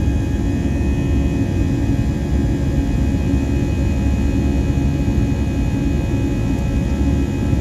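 Airbus A320 jet engine and airflow heard from inside the cabin in flight: a steady, even roar, heaviest in the low rumble, with faint steady high whining tones over it.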